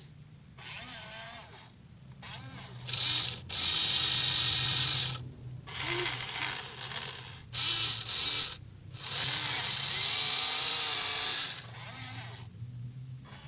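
Electric gear motors of a Huina 1593 radio-controlled excavator whirring in a string of stop-start bursts, the longest about two seconds, as its arm, bucket or tracks are driven.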